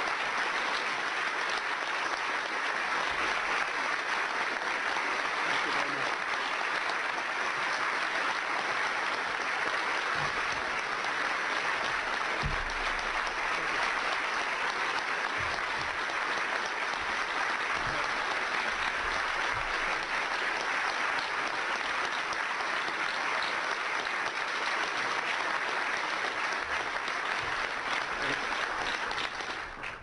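Large audience applauding steadily, dying away near the end.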